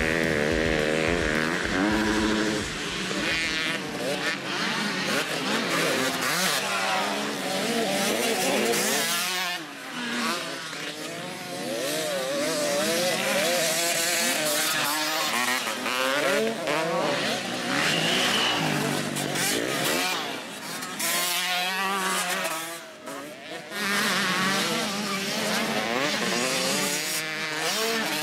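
Motocross bike engines revving hard, their pitch rising and falling again and again as the bikes accelerate out of corners and back off.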